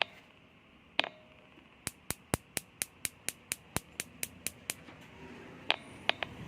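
A run of sharp clicks, about four a second for some three seconds, with single clicks before it and a few more near the end.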